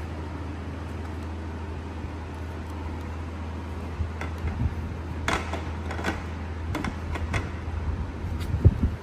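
A steady low hum throughout, with sharp clicks and knocks of handling from about four seconds in; the loudest knock comes near the end.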